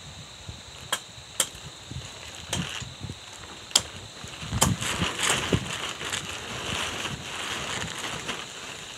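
Sharp wooden cracks and knocks, four of them in the first four seconds, then a few seconds of rustling and crackling as branches and brush are handled, with some dull thumps.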